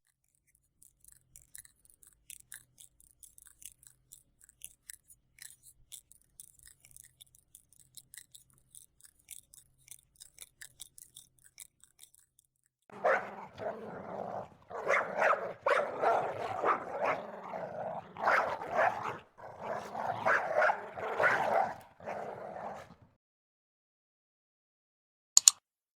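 A dog making a run of short, choppy calls for about ten seconds, starting about halfway in. Before it there are only faint ticks, and a single sharp click comes near the end.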